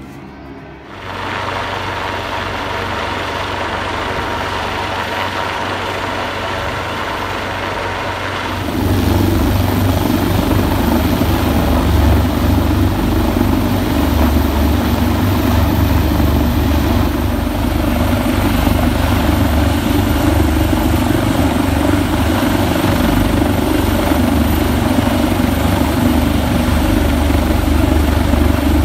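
Coastguard search-and-rescue helicopter hovering close overhead during a winch operation, its rotors and turbines giving a loud, steady drone. The sound grows louder about a second in, and again near nine seconds.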